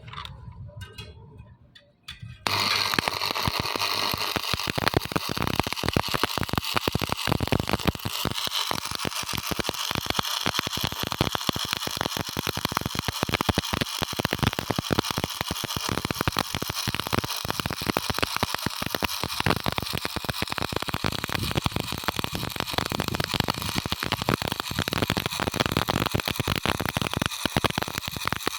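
Stick (SMAW) welding arc with a 3.15 mm electrode on a flat root pass: the arc is struck about two and a half seconds in and then keeps up a steady, dense crackle.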